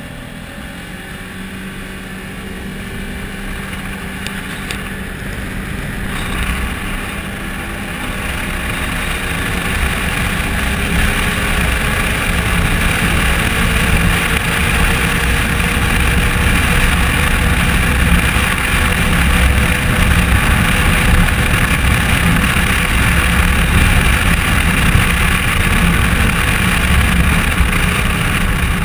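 Polaris RZR side-by-side being driven on a paved highway: the engine, tyre and wind noise build steadily as it picks up speed over the first dozen seconds or so, then hold at a steady cruise.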